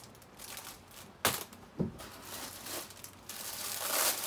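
Two short knocks of things being handled in a cardboard box, then plastic wrapping crinkling loudly from about three seconds in as a plastic-wrapped bag is lifted out.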